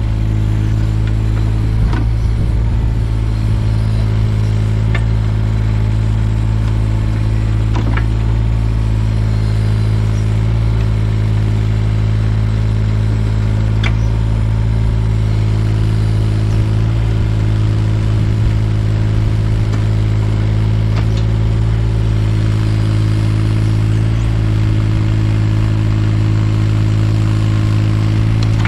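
Takeuchi TB216 mini excavator's diesel engine running steadily under working load, with a few sharp clicks and clatter as the toothed bucket rakes stones out of the topsoil.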